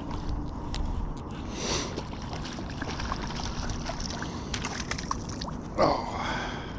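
Water sloshing and trickling, with scattered small clicks and knocks and a brief louder splash-like swell about a second and a half in.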